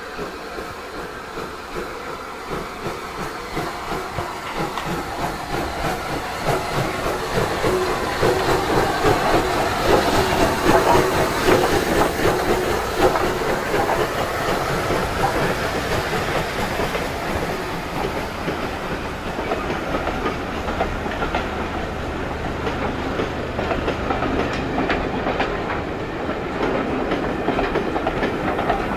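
Rebuilt Bulleid Battle of Britain class steam locomotive 34053 approaching and passing, loudest as it goes by about a third of the way in. Its coaches then roll past with a clickety-clack of wheels over the rail joints.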